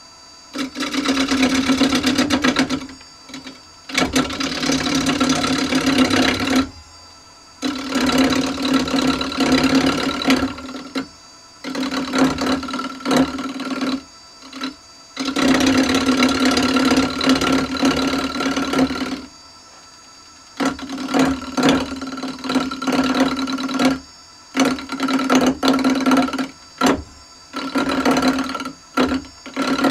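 Wood lathe spinning a sapele blank while a turning gouge cuts into it in repeated passes of one to four seconds, with short pauses between them where only the lathe's running is heard. Toward the end the passes become shorter and choppier.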